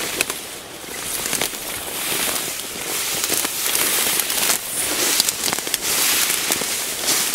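Dry reeds and grass stems crackling and rustling against the body as someone pushes through them on foot, with a steady stream of small snaps and swishes.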